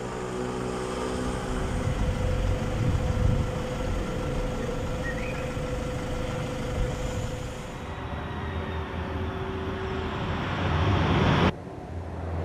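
Outdoor street ambience: a steady rumble of passing traffic that drops off abruptly near the end.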